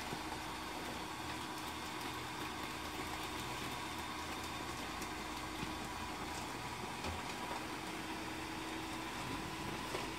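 Electric blower fan of a Gemmy airblown inflatable running steadily, a constant whirring hum with a faint steady tone, as the nylon figure fills with air.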